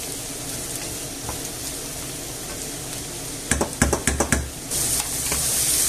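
Sliced mushrooms sizzling in hot oil in a non-stick frying pan while two wooden spatulas stir them, with a quick run of knocks of the spatulas against the pan about three and a half seconds in. Near the end the sizzle turns louder and hissier.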